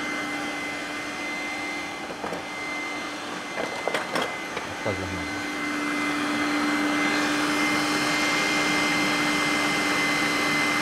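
Electric stand mixer (Sumsun Tech) running steadily with an even whine, its whisk beating fresh cream in a stainless steel bowl until it doubles in volume. A few light clicks come about four seconds in, and the whirring gets louder about six seconds in.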